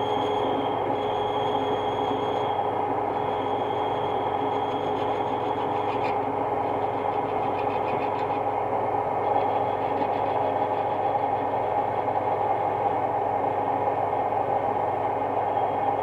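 Metal lathe running steadily, its chuck spinning a brass workpiece while a parting tool cuts it off, with a thin high tone from the cut coming and going and a few seconds of light rattling about six seconds in.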